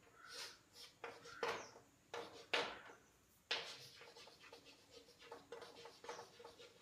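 Chalk on a chalkboard: several sharp strokes and taps as lines and arrows are drawn, then quicker, fainter scratching as a word is written.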